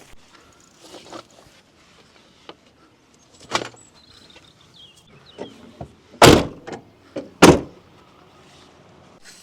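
Three heavy thumps over a quiet background, with lighter knocks between them: one about three and a half seconds in, then two loud slams about a second apart past the middle.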